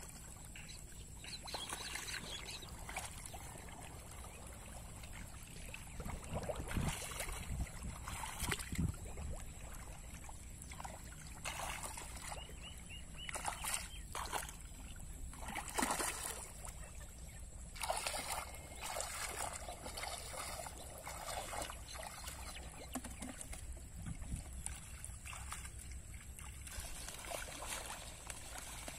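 Water splashing and sloshing in irregular bursts as hands grope and stir through the mud of shallow, muddy water while fishing by hand.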